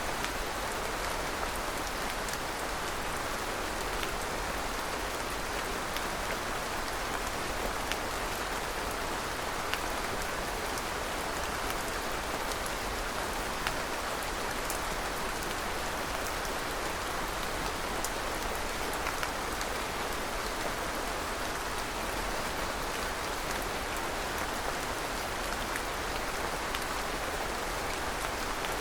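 Steady rain falling, an even hiss with scattered individual drops ticking on surfaces.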